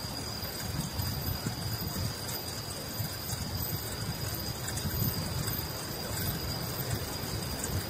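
Bicycle riding along an asphalt road: a steady low rumble of tyres on the road and wind noise, with a faint steady high-pitched tone above it.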